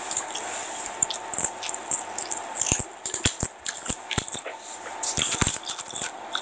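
Close-up eating sounds: chewing with irregular wet smacks, clicks and crunches near the phone's microphone.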